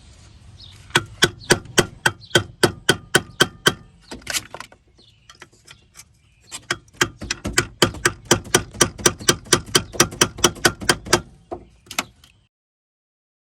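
Hammer tapping rapidly on a flat-blade screwdriver worked around a rusted-on truck brake master cylinder to break its seal from the brake booster: metal-on-metal taps, about five or six a second, in two runs with a short pause between, then one last tap before the sound cuts off abruptly.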